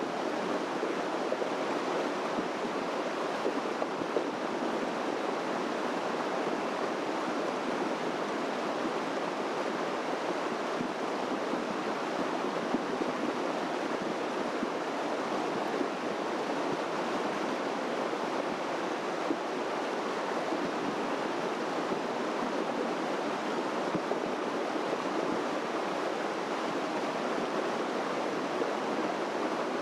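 Steady rushing of running water, an even unbroken hiss at one level throughout.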